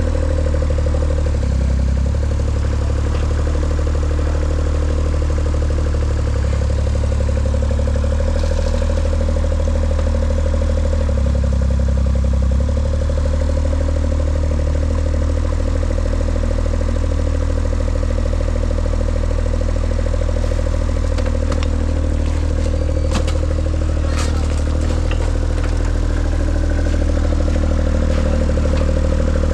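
An engine running steadily, with a few sharp knocks near the end.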